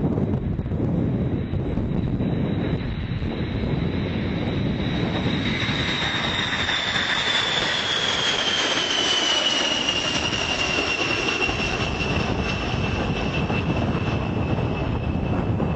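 Wind buffeting the microphone, with a passing jet aircraft's high engine whine that holds steady, then slides slowly down in pitch from about five seconds in and settles lower.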